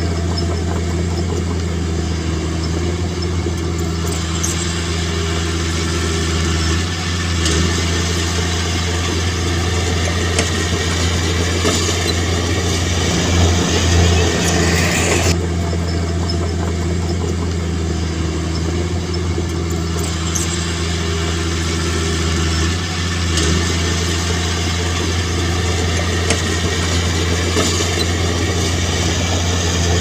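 Heavy earthmoving machine's diesel engine running steadily with a low, even hum, a brief rising whine about halfway through.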